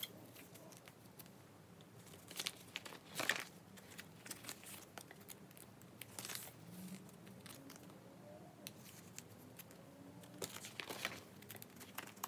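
Photocards being slid in and out of clear plastic binder sleeve pockets, with faint crinkling and rustling of the plastic pages in short scattered strokes, a few sharper rustles about two to three seconds in and again near the end.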